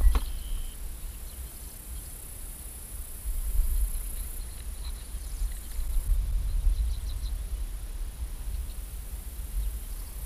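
Wind rumbling and buffeting on the microphone, with a steady high-pitched hiss over it and a few faint ticks. A sharp knock comes right at the start.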